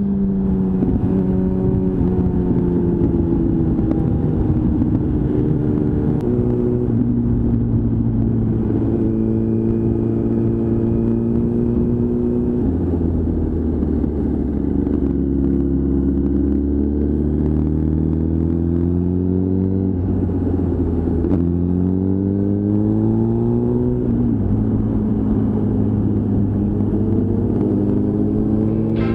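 Motorcycle engine heard from the rider's seat while riding, its pitch climbing and sinking with the throttle and stepping at several gear changes.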